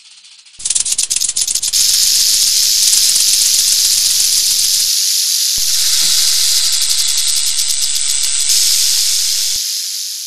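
Rattlesnake shaking its rattle: a loud, continuous high buzz, the snake's warning. It breaks off for a moment at the start, then runs on and fades out near the end.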